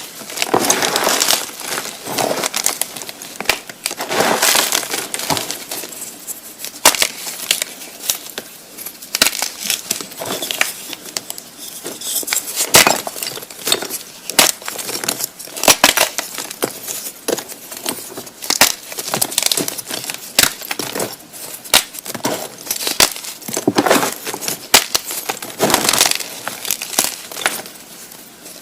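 Blocks of gymnastic chalk (magnesium carbonate) being crushed, crumbling with dense, irregular crunches and sharp crackles, some brittle and clinking like glass.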